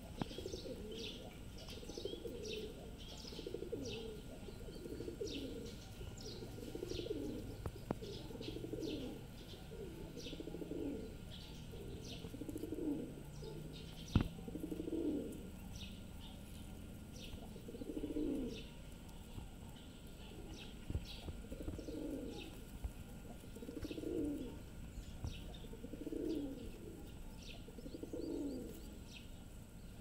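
Rock pigeons cooing over and over, a low cooing phrase every second or two, with many quick high bird chirps over the top. One sharp tap about fourteen seconds in.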